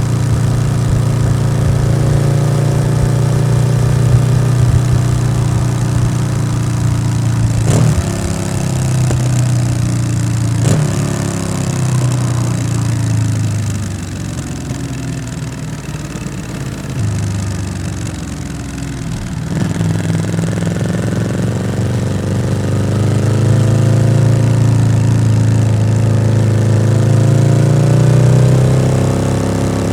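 Yamaha XSR700's parallel-twin engine running through an SC-Project aftermarket exhaust while riding. The engine note breaks sharply twice, about 8 and 11 seconds in, then drops lower and quieter, and from about 20 seconds it climbs steadily again as the bike accelerates.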